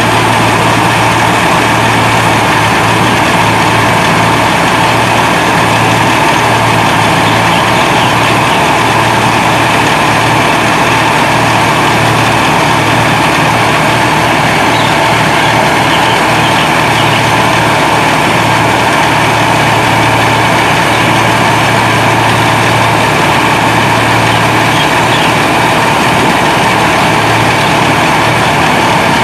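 Rice combine harvester's diesel engine running loudly and steadily while the machine unloads grain through its auger, a constant heavy machinery drone with a steady low hum.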